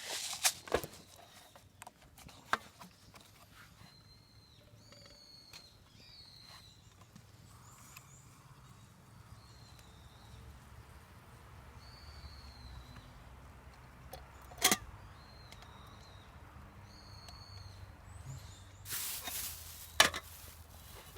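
Birds calling over and over in short, high chirping phrases, with a few sharp knocks: a loud one about halfway through and a cluster of clatter near the end.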